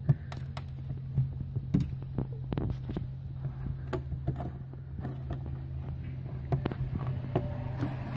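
Scattered light clicks and knocks of hand work on the car's floor-level fuel pump access panel, over a steady low hum.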